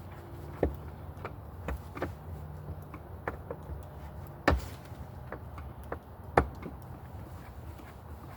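A screw being driven into a light fixture's mounting hole by hand: irregular small clicks and taps of the screwdriver and metal parts, with two sharper knocks, one about halfway through and one a couple of seconds later.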